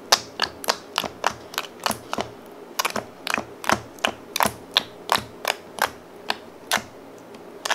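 Fingertips poking and pressing clear PVA-glue slime in a plastic tray, making a quick run of sharp sticky pops and clicks, about four a second.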